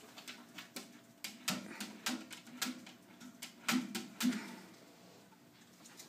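Puppy's claws tapping and scratching against a glass rat tank and its wire cage, a scatter of irregular clicks and taps, with a few short, low puppy grunts about a second and a half in and again near the four-second mark.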